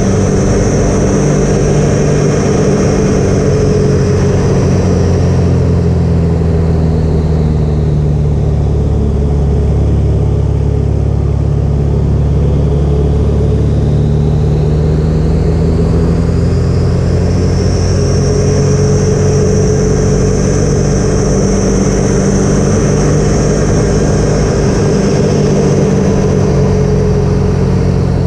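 Pitts biplane's piston engine and propeller running steadily at high power, heard from a camera on the aircraft with wind rush. A high whine sinks in pitch and fades through the middle, then rises back.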